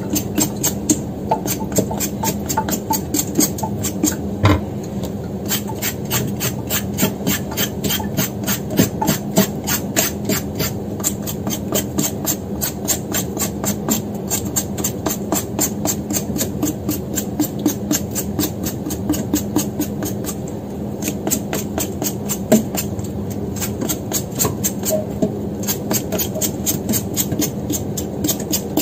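Vegetable peeler scraping the skin off a hairy gourd (cit kwa), in quick, regular strokes, over a steady low hum.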